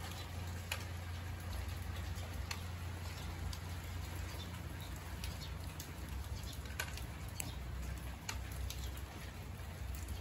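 Outdoor ambience: a steady low rumble with scattered faint ticks.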